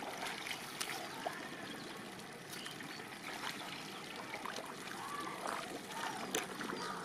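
Steady, low trickling of shallow water, with a few light clicks.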